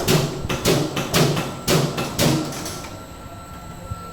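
Punching and shearing die in a stamping press striking metal strip, a series of sharp strikes about two a second that stops about two and a half seconds in.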